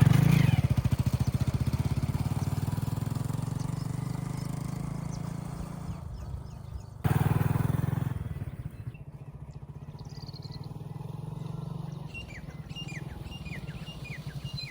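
Engine running with a rapid, even firing pulse, fading away over several seconds, then loud again about seven seconds in and fading once more. Birds chirp in the last few seconds.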